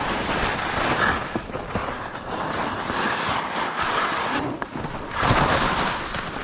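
Skis scraping and hissing over firm, chopped-up snow during a fast descent, swelling and fading in waves and loudest about five seconds in, with wind rushing over the microphone.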